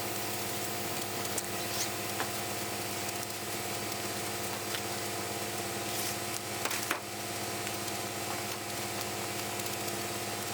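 Concrete pumping equipment running steadily at a pour: an engine hum with several steady tones under a hissing haze, with a few faint knocks and clicks.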